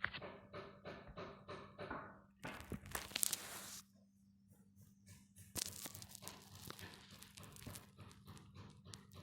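A rapid run of short chirps, about five a second, stops about two seconds in. It gives way to bursts of rustling, crinkling and crunching, like something dry or papery being handled and torn. The crinkling is loudest around the third second and again from about the sixth second on.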